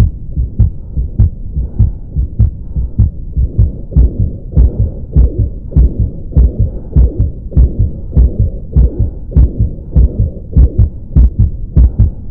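A baby's heartbeat as heard through a stethoscope: fast, regular lub-dub beats. After the first few seconds an extra whooshing sound runs with the beats, a cardiac murmur, and near the end the normal beat returns without it.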